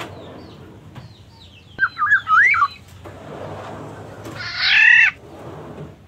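Black-naped oriole calling: a short, wavering whistled phrase about two seconds in, then a louder, harsh squawk about a second later.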